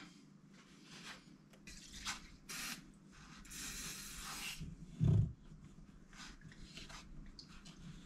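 Quiet handling noises from working on a DJ controller's button circuit board by hand: scattered light clicks and rustles, a longer hissing rub around the middle, and a short low thump about five seconds in.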